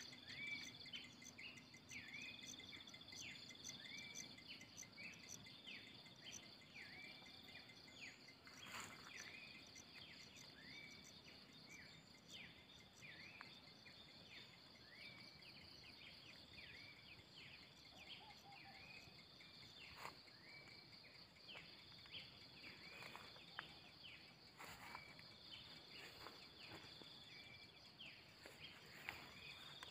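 Faint dawn ambience of insects and birds: a steady high drone of crickets or other insects, with many short bird chirps repeating over it.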